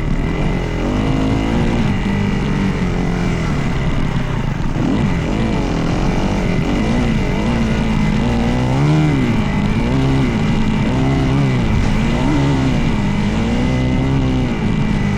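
Dirt bike engine running hard while riding, its pitch rising and falling again and again as the throttle is opened and closed, with a steady high whine underneath.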